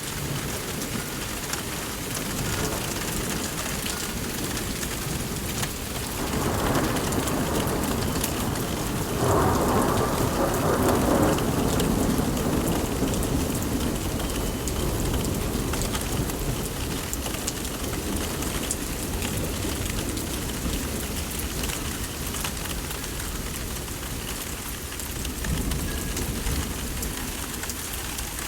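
Thunderstorm: steady rain falling, with a long roll of thunder that builds about six seconds in, is loudest a few seconds later and slowly fades, and a smaller rumble near the end.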